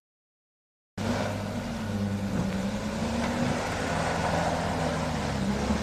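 Motor vehicle engine running steadily, with a low hum that wavers slightly in pitch. It comes in abruptly about a second in, after a second of dead silence.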